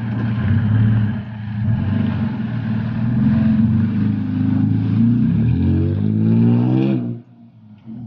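A vehicle engine running, revving up with a rising pitch about six seconds in, then cut off abruptly about a second later.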